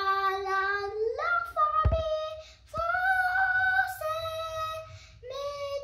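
A young boy singing a song unaccompanied, holding each note for about a second as the tune steps up and down, with short breaks between phrases.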